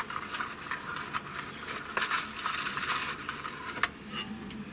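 Small stainless steel screws clinking and rattling as they are handled by hand, with a couple of sharper clicks.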